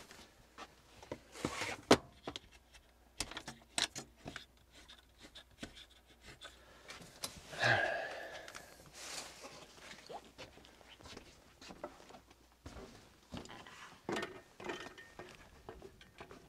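Scattered knocks, clunks and rustles of camping gear and bedding being handled inside a truck camper, with a sharp knock about two seconds in the loudest, and a short scraping squeak a little before the middle.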